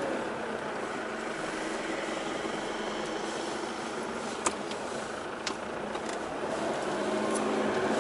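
Off-road vehicle driving over desert sand, heard from inside the cabin: a steady engine and road noise that swells toward the end. A few sharp clicks come through about halfway.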